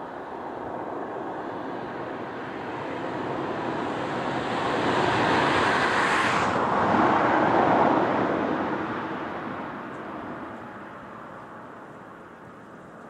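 A car driving past on a road, its engine and tyre noise swelling as it approaches. It passes about six or seven seconds in, where the hiss drops suddenly, and then fades away as it moves off.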